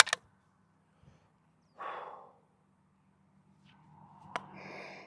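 A person breathing out heavily: one short exhale about two seconds in, then a longer breath swelling near the end. A sharp click comes right at the start, and a fainter click near the end.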